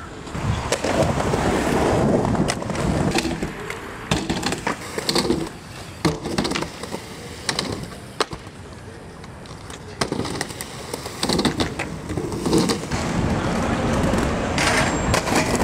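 Skateboards rolling on concrete, broken by sharp clacks from tail pops and landings. Near the end comes a louder grind along a metal handrail.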